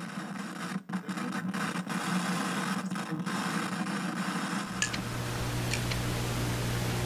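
Hissing static noise with a low buzz and brief dropouts; a little under five seconds in it changes to steady white-noise static over a low mains-style hum, with a few faint ticks, like an analogue TV screen showing snow.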